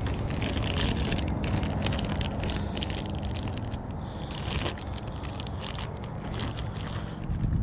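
Plastic zip-top bag being opened and handled close by, its plastic crinkling in many quick, irregular crackles.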